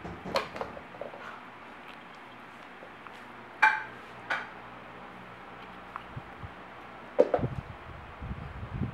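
Kittens scuffling and wrestling in a fabric play cube: scattered taps and scrapes, a sharp ringing clink about three and a half seconds in, and a run of soft thumps and scuffs near the end.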